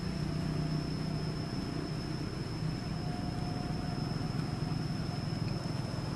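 Steady outdoor background: a low, even rumble with a constant thin high-pitched whine over it. The whine cuts off abruptly just at the end.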